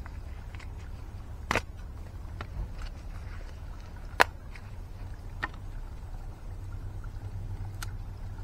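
Outdoor yard ambience: a steady low rumble with a few sharp clicks, the loudest about four seconds in.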